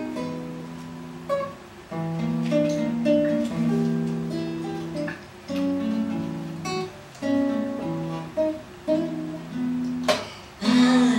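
Solo acoustic guitar playing an instrumental passage: plucked and strummed chords held about a second each, with brief pauses between phrases and a few sharp accented strikes.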